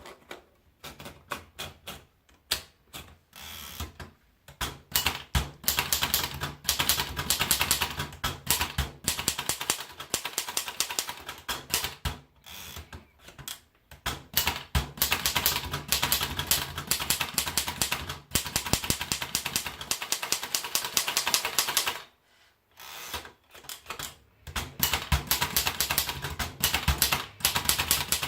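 Erika Model S portable manual typewriter being typed on: fast runs of key strikes clacking against the platen, with a few short pauses between runs.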